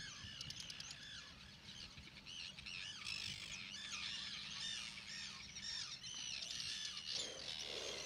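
A breeding colony of Arctic terns calling: many harsh, overlapping calls, several a second, without a break.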